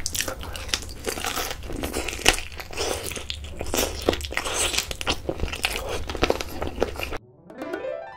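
Close-miked biting and chewing of a sauce-coated fried chicken drumstick, with many short, sharp crunches. About seven seconds in it cuts off, and a rising musical jingle begins.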